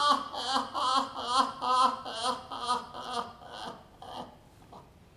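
Kyōgen actor's stylized stage laugh: a long run of rhythmic "ha" syllables, about three a second, that grow weaker and die away after about four seconds.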